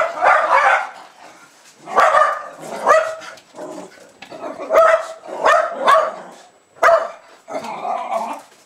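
Jack Russell terriers barking excitedly in quick, irregular bursts of one to three barks, their usual frantic greeting for someone coming home.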